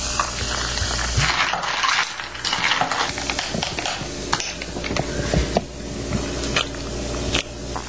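Club soda fizzing as it is poured over ice into a glass of homemade ginger ale, then a spoon stirring, with repeated light clinks of spoon and ice against glass.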